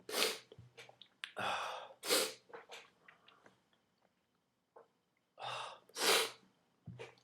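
A person sneezing, set off by a twist tie tickling inside the nose: a gasping in-breath and a short sneeze about two seconds in, then another gasp and sneeze about six seconds in.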